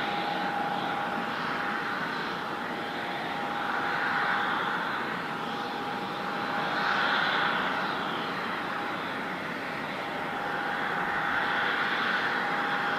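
Jet airliner engines running: a steady rushing noise with a constant whine, swelling and easing every few seconds.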